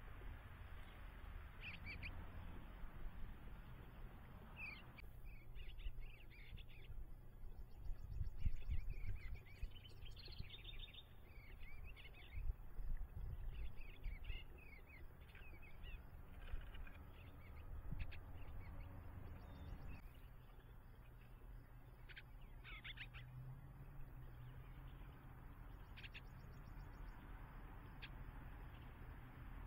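Small songbirds chirping and twittering in short scattered calls, thickest in the middle of the stretch, over a steady low rumble.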